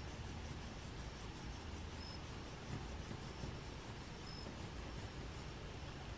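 Graphite pencil shading on paper: soft, steady scratching of quick repeated strokes.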